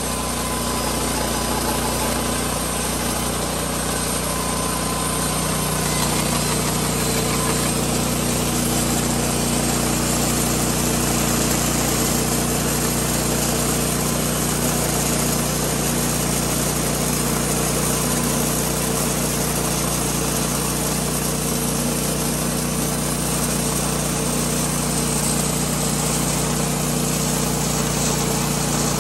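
Hardwood Mills GT26 Deluxe portable bandsaw mill running steadily as its blade saws along a beam, its engine note changing about five seconds in and then holding steady.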